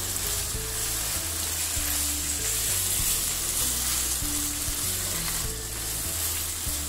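Keema and diced green capsicum sizzling steadily in oil in a karahi, stirred and turned with a silicone spatula. The dish is being bhuna'd: fried hard in its own released oil over medium-high heat.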